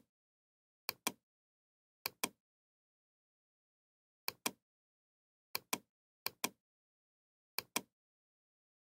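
Computer mouse clicks, six of them, spaced irregularly. Each is a sharp double click of the button going down and coming back up.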